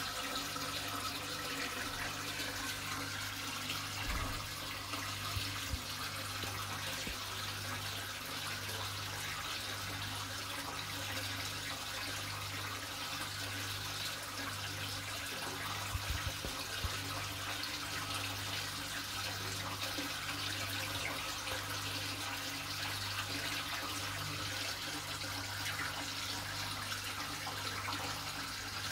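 Aquarium water splashing and trickling from a filter return pouring in from above, with air-stone bubbles, as a steady hiss. Under it a steady low hum from a pump, with a second low tone pulsing a little more than once a second.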